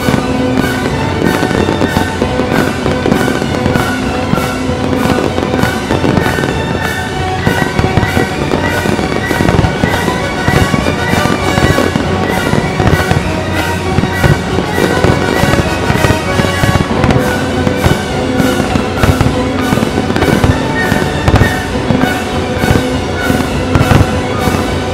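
Fireworks display: a continuous run of shell bursts and crackling, growing denser about a third of the way in, over music with long held notes played along with the show.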